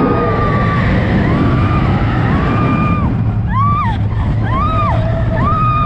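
Riders screaming on a roller coaster over the steady rumble of the train running on its track. Long held screams give way, about halfway through, to short rising-and-falling yells roughly every three-quarters of a second.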